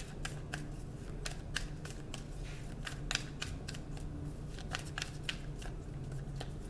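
A tarot deck being shuffled overhand by hand: a run of quick, irregular crisp card clicks and snaps, several a second, over a low steady hum.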